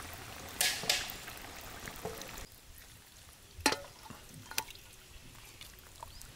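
Gravy being poured and dripping onto rice, a soft liquid hiss that fades about two and a half seconds in, followed by a couple of light clicks.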